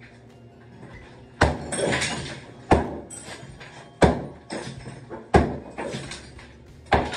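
Small sledgehammer striking an old tiled shower wall's cement backing during demolition, five heavy blows about one every second and a half. Each hit is followed by about half a second of crumbling noise.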